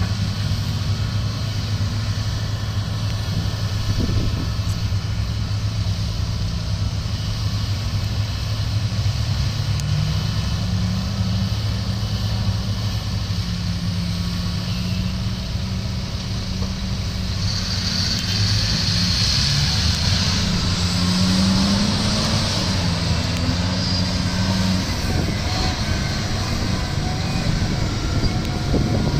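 Heavy diesel engines of a Komatsu PC1250 mining excavator and HD785 dump truck running, the engine note rising and falling as the excavator works. A hiss joins in a little past the middle and lasts several seconds.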